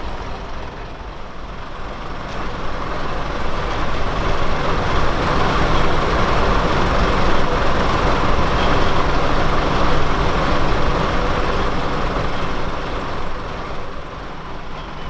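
A pair of Class 121 'Bubble Car' diesel multiple units pulling away, their underfloor diesel engines running under power. The sound grows louder a few seconds in, holds steady, then eases near the end.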